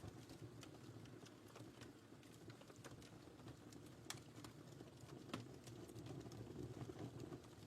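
Wood fire crackling in a fireplace: irregular small pops and snaps over a soft, steady low rumble of the flames, with sharper pops about four seconds in and just past five seconds.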